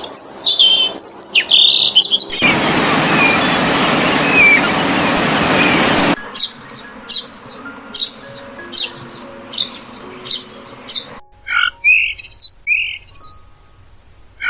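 Birds chirping in a series of short clips. Loud chirps come first, then a few seconds of loud rushing noise with faint chirps under it, then a run of sharp chirps about two a second, then scattered chirps near the end.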